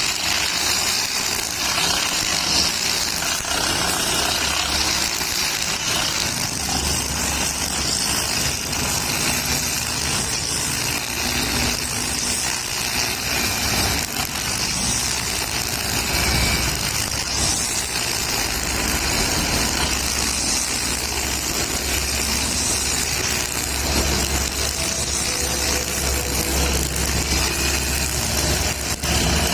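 Engine-powered brush cutter fitted with a nylon string line, running steadily throughout.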